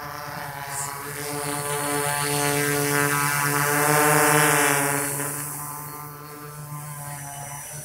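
SK450 quadcopter's four brushless motors with 10-inch propellers, buzzing in a hover. A steady hum of stacked tones swells to its loudest about four seconds in as the drone passes close overhead, then eases off.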